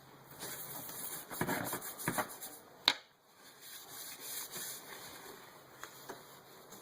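Rubbing and wiping on a small brushless motor bell as it is cleaned with alcohol, broken by a few sharp clicks of handling. The loudest click comes about three seconds in.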